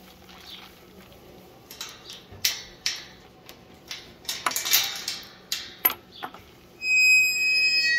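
Metal chain latch on a tube livestock gate rattling and clinking as it is worked loose, a string of sharp clinks. Near the end comes a loud, high, steady squeal lasting about a second.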